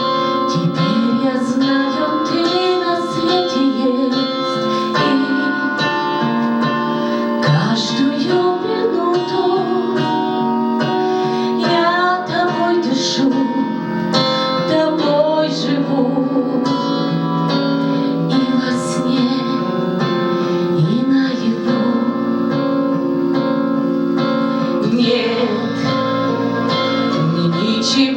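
A woman singing a Russian-language song with vibrato over an instrumental accompaniment led by guitar.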